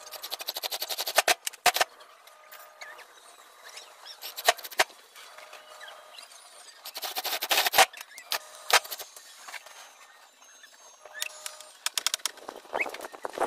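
Cordless impact driver driving screws into an aluminum window frame, running in three short bursts of rapid hammering clatter over a motor whine, with a few lighter knocks between.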